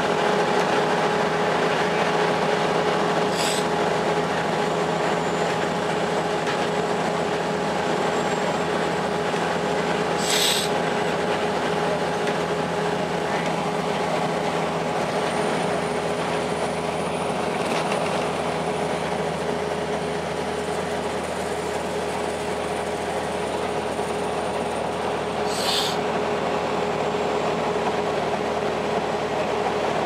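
Steady interior drone of a 2002 Blue Bird CS transit bus at cruising speed, with its Cummins ISL9 diesel and road noise heard from inside the cabin. A steady whine runs through it, and there are three brief hisses.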